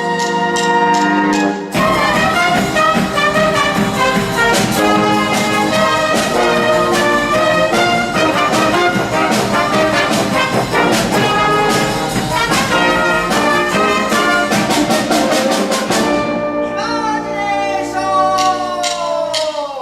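Brass band playing: a held chord, then a fast rhythmic passage of brass over percussion. Near the end the percussion drops out and the brass slide downward together in a long falling glissando.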